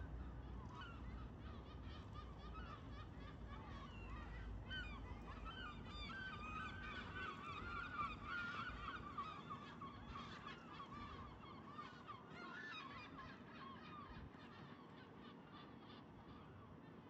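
A flock of birds calling with many overlapping honking calls, densest in the middle and thinning out towards the end. A low rumble sits under the first few seconds.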